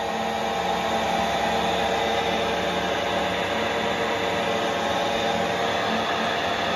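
Harrison M400 metal lathe running under a turning cut, the tool taking a long steel bar down to 24 mm diameter. A steady machine hum with hiss, while cutting fluid sprays onto the work.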